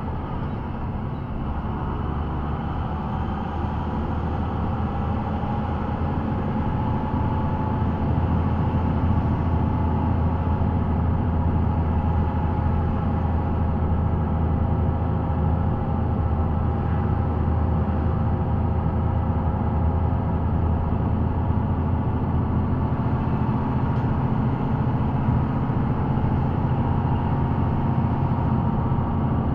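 Engine drone and road noise inside the cab of a large vehicle under way, with a steady engine note that drifts slightly in pitch as the speed changes.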